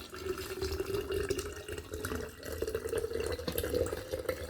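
Hot boiled water being poured into a large glass jar, a steady splashing with a pitch that slowly rises as the jar fills.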